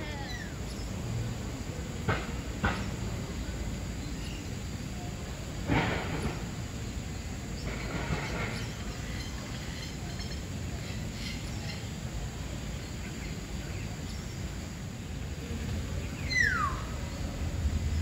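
Aviary ambience with a steady background hiss, broken by a few short, sharp bird calls and, near the end, one clear falling whistled call.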